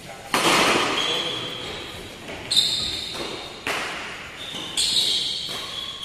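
Badminton rackets striking the shuttlecock in a doubles rally: four sharp hits, one to two seconds apart, each echoing in the hall.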